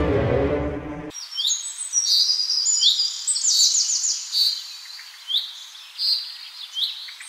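Background music that cuts off about a second in, then birds chirping and singing: quick, high, overlapping chirps and short trills.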